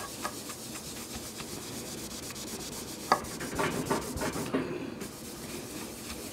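Cloth rubbing polishing compound back and forth by hand over a Bakelite radio case, a steady scrubbing. There is a brief sharp knock about three seconds in, then a second or so of heavier strokes.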